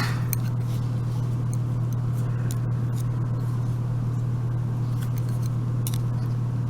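Steady low electrical hum, with a few faint light clicks of small metal lock parts being handled.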